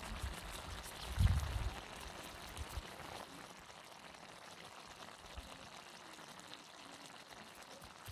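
Vegetable and tomato stew simmering in a pan over a wood fire in a folding camp stove: a steady hiss, with a few low rumbles in the first three seconds.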